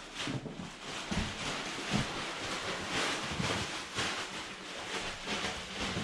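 Handling noise: irregular rustling with a few light knocks.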